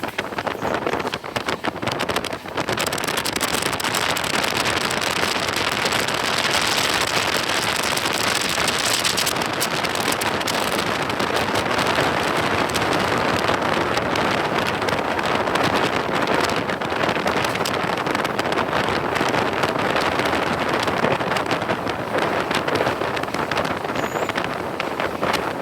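A passenger train running at speed, heard from on board as a steady rushing roar with wind buffeting the microphone. The noise wavers for the first couple of seconds, then holds even.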